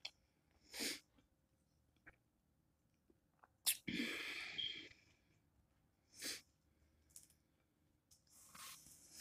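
Quiet sounds of a person eating: a few short mouth noises and breaths through the nose, the loudest a sharp breath about four seconds in lasting about a second.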